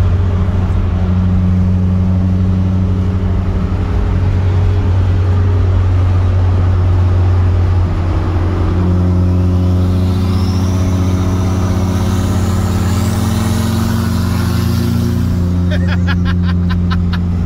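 Turbocharged Honda Preludes at highway speed, heard from inside the cabin: a steady engine and road drone. From about ten seconds in, a turbo whistle rises in pitch under acceleration, and a quick run of clicks comes near the end.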